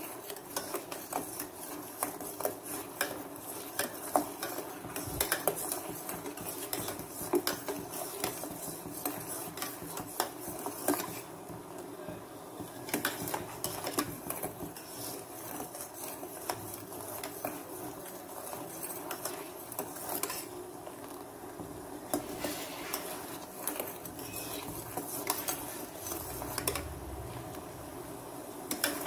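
Steel spoon stirring and scraping black sesame seeds in a metal pan, with frequent clinks of the spoon against the pan.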